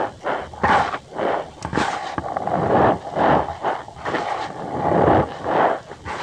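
Cornstarch powder squeezed and pressed by hand, giving a run of squeaky crunches at an uneven pace, several in quick succession and then a few slower ones.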